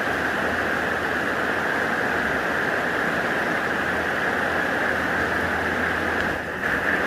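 Steady rush of flowing river water, an even noise that holds level, with a brief dip about six and a half seconds in.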